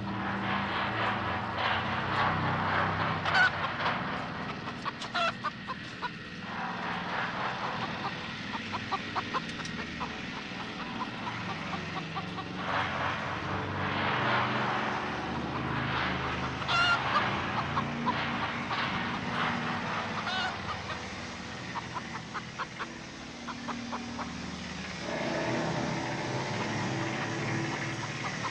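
Caged chickens clucking and squawking again and again over a low, steady droning film score.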